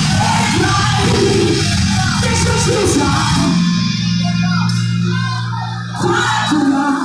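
Loud church music with voices singing over a band, the low notes held steady through the second half.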